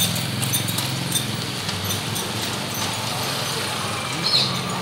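Street background noise with a vehicle engine running steadily, a few light clicks, and a brief high-pitched sound near the end.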